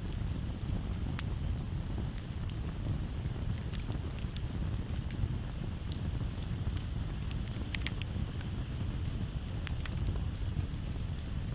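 Campfire crackling with scattered sharp pops over a low, steady rumble of breeze, with crickets trilling steadily in the background.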